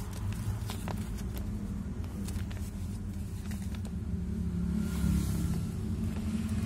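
A paper instruction leaflet being unfolded and handled, with faint crinkles and a soft rustle about five seconds in, over a steady low rumble.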